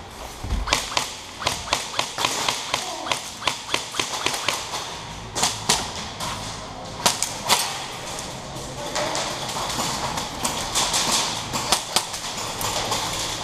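Airsoft guns firing quick single shots, about four or five a second for the first few seconds, then scattered shots.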